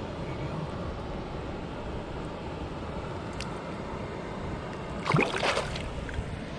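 Steady rush of flowing river water and wind, with a brief louder burst about five seconds in.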